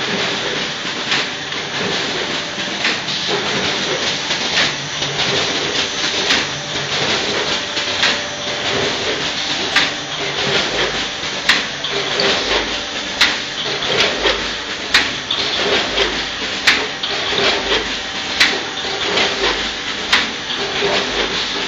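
Multihead weigher and horizontal bagging machine packing small MSG granules: a steady mechanical clatter with a sharp clack about every one and a half to two seconds, the machine's regular weighing and bagging cycle.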